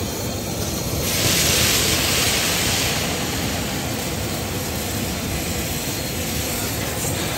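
Hot oil sizzling in a large kadai as marinated chicken deep-fries: about a second in, the sizzle jumps up sharply, as when pieces go into the oil, then settles into a steady hiss. A low steady roar from the flame under the pan runs beneath it.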